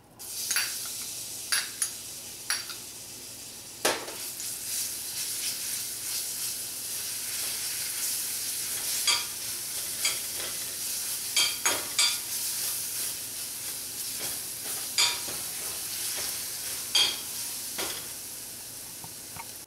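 Grated garlic sizzling as it toasts in hot corn oil in a small stainless-steel frying pan, with a metal spoon stirring and clicking against the pan every second or so at irregular moments.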